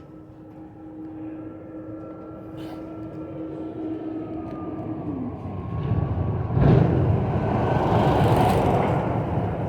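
A vehicle approaching and passing: a steady hum with a held tone that drops away about five seconds in, then a rumble that builds quickly and is loudest about seven seconds in.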